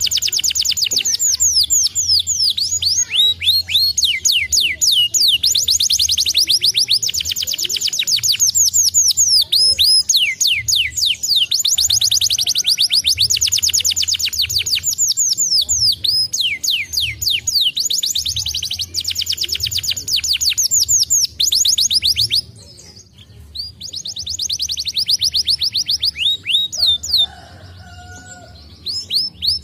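Domestic canary singing: long, rapid trills of repeated high, down-sweeping notes, one rolling phrase after another. The song breaks off briefly about three-quarters of the way through and again near the end.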